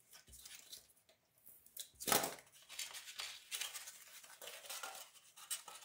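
Styrofoam plate pieces being cut with a craft knife and handled, making a run of light scrapes, clicks and rustles. A louder brief foam rustle comes about two seconds in.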